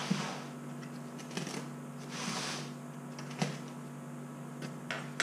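A cardboard shipping box being opened by hand: a blade slitting the packing tape, with hissy scraping and rustling of the tape and cardboard, twice for about half a second, and a few sharp clicks.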